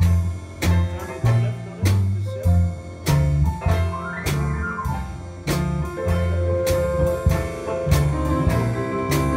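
Traditional New Orleans jazz band playing an instrumental passage: deep bass notes on an even beat with drums and banjo strokes under the horns. A sliding rise in pitch comes about four seconds in, and a long held horn note fills the second half.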